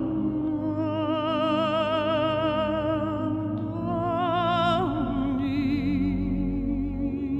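Background music: a sustained singing voice with strong vibrato, holding long notes over a steady low accompaniment, moving to a higher note about four seconds in.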